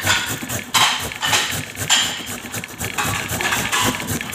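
Carrot being grated on a handheld stainless-steel grater: repeated rasping strokes, a scraping burst every half-second to a second at an uneven pace.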